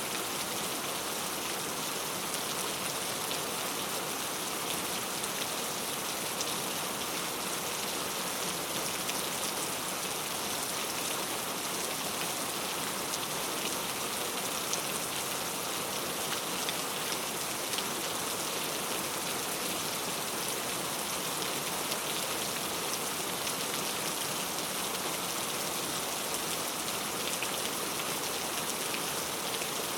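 Heavy rain falling steadily, a dense patter of drops on hard surfaces.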